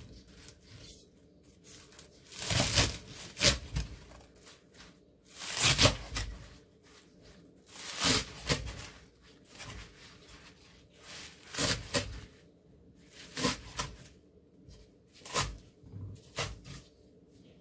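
Kitchen knife chopping through a bundle of green onions on a wooden cutting board: short clusters of crisp cuts every two to three seconds, the blade knocking on the board.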